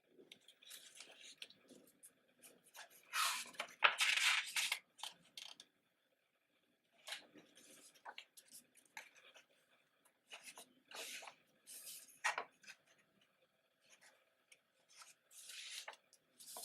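Paper pages of a thick photobook being turned and handled, rustling and flapping in irregular bursts, the loudest a few seconds in.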